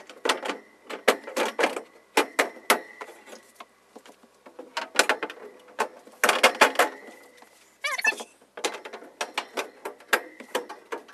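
Cupboard shelves being set in place and clipped into back wall clips: an irregular run of sharp clicks, knocks and rattles in quick clusters.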